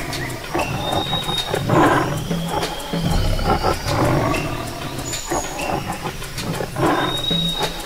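Dubbed-in tiger roar sound effects: several deep, rough roars that swell up a couple of seconds apart.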